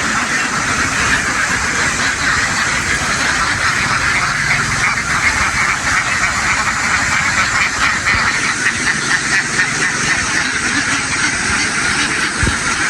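A huge flock of domestic ducks quacking all at once in a dense, continuous chorus.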